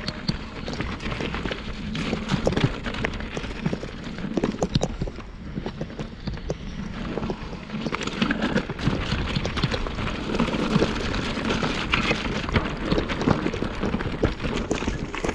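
Mountain bike being ridden over rough trail ground: tyres crunching and the bike rattling, with many small sharp knocks throughout.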